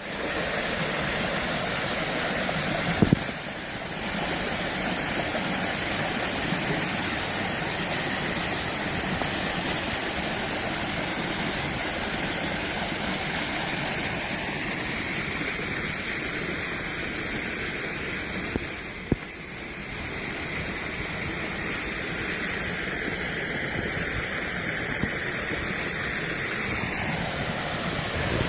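Steady rush of falling, splashing water, as from a pool waterfall or cascade, broken briefly by a click and a short dip about three seconds in and again near the middle.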